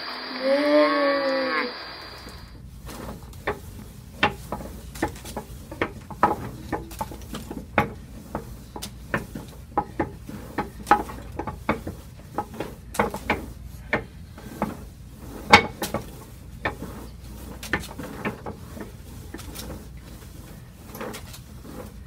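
One moo in the first second or so. Then irregular knocks and clatters, a few a second, from homestead chores worked by hand: clothes scrubbed on a washboard in a metal tub and a wooden butter churn's dasher plunged up and down.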